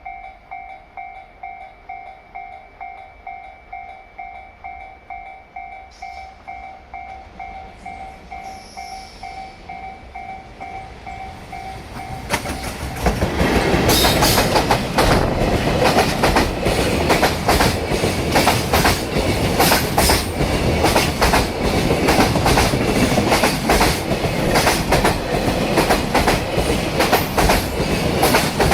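Level-crossing warning bell dinging about twice a second. About 12 seconds in, a JR Freight EF210 electric locomotive and its Koki container wagons pass close by, and the wheels hammer over the rail joints in a loud, rhythmic clatter that drowns the bell.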